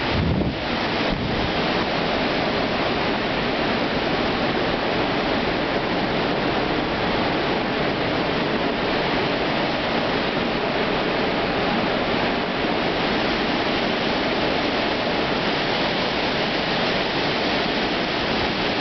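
Hurricane-force storm wind rushing steadily and without a break, a continuous jet-like noise, with a brief gust buffeting the microphone right at the start.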